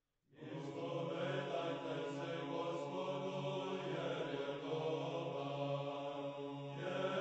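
Orthodox church chant: voices singing over a steady held low drone. It starts abruptly about a third of a second in.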